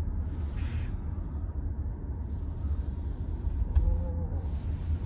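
Low, steady road and tyre rumble inside the cabin of a Nissan Ariya electric SUV rolling slowly, with no motor whine and no pedestrian-warning sound to be heard. A single sharp click comes a little under four seconds in.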